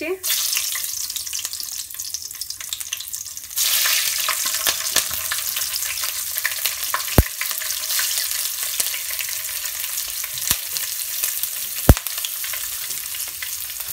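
Cumin seeds and whole green chilies sizzling in hot oil in a non-stick wok. The sizzle grows louder about three and a half seconds in, and a few sharp clicks sound over it, the loudest near the end.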